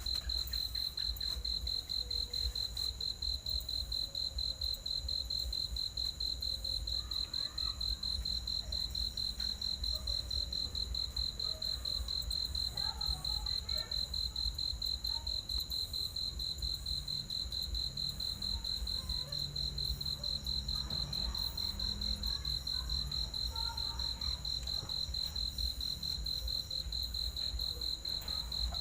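Crickets trilling steadily in a continuous high, rapidly pulsing tone, over a low rumble.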